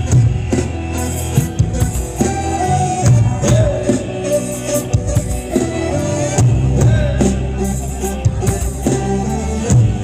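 Loud live Thai ramwong dance music from a band with a drum kit, with a strong bass and a busy beat.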